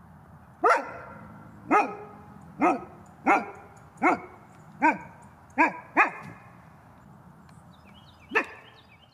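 Gray wolf barking: a series of short, pitched barks about once a second, then a pause and one last bark near the end.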